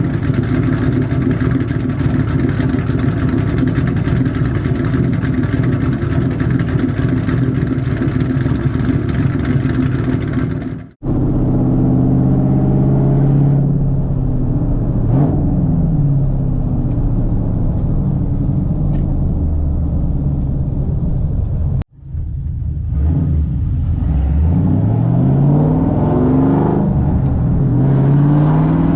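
Ford 4.6L 2V V8 with Comp XE262AH cams, long-tube headers, an H-pipe and straight pipes, running loud. It holds a steady drone for about the first eleven seconds. After a sudden break its pitch swings up and down with revving, and after a second break it rises in repeated sweeps as it accelerates.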